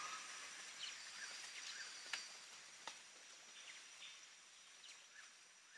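Faint rain ambience fading out: an even hiss with scattered short chirps and clicks, about a dozen of them, growing quieter toward the end.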